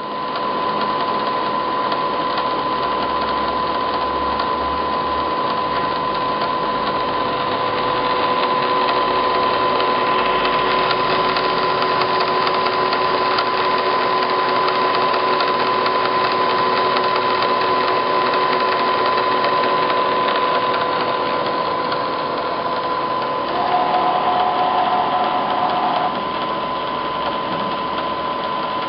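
Bridgeport Series 1 EZ Trak CNC milling machine running a bolt-hole drilling program: a steady machine whine that comes on at once and holds, with a second, higher tone and a slightly louder stretch for a couple of seconds near the end.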